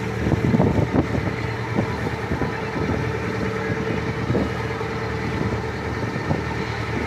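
A motorboat's engine running steadily under way, with several irregular thumps, most of them in the first couple of seconds.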